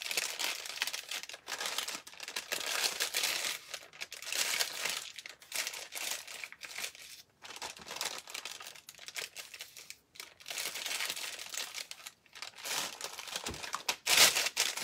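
Clear plastic piping bag crinkling in irregular stretches as it is handled and filled with spackling scooped in with a popsicle stick; loudest near the end.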